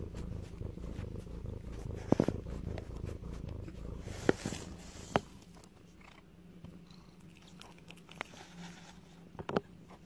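Domestic cat purring close up, a low rumble that weakens after about five seconds. A few sharp taps or clicks sound over it.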